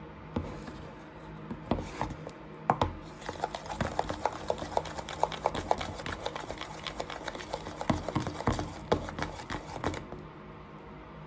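Plastic spoon stirring thick shampoo and baking soda slime in a plastic tub: a few scattered clicks, then a quick run of many small clicks and squelches a second from about three seconds in, stopping near the end.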